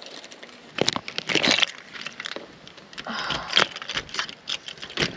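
A bunch of keys jangling and clicking at a caravan door lock, with two rustling crunches underfoot on dry leaf litter.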